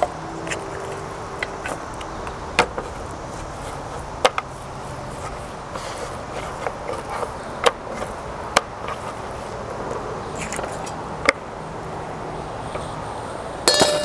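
Hands rubbing spices into raw lamb chops on a wooden cutting board: scattered sharp taps and clicks over a steady low background noise. Near the end comes a louder metallic clatter as a steel plate is handled.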